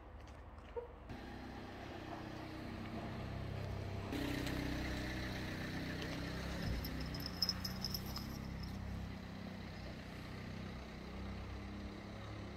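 A vehicle engine running with a low, steady hum. It swells about four seconds in and eases off again toward the end.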